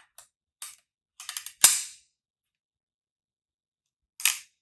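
Voigtlander Vito Automatic I film camera worked by hand, giving small metallic clicks: two light ones, a quick run of clicks, then one loud sharp snap with a brief ring about a second and a half in, and a couple more clicks near the end.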